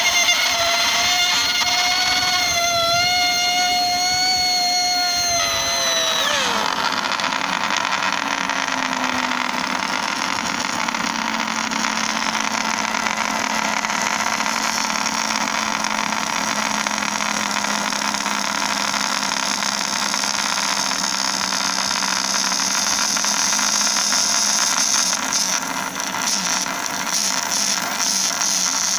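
Small brushed DC motor being overdriven to destruction, running with a high whine while its brushes arc and spark; about six seconds in the whine drops sharply in pitch and dies out as the motor fails. A steady hiss with a faint low hum carries on afterwards.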